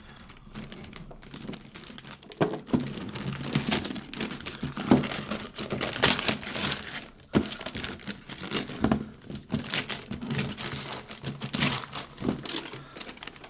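Gift wrapping paper being torn and crumpled as a present is unwrapped, in a busy run of irregular rips and crinkles.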